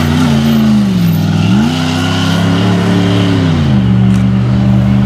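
Off-road rally 4x4's engine running under throttle: the revs sag, climb sharply about a second and a half in, hold, then drop to a steady lower note about four seconds in.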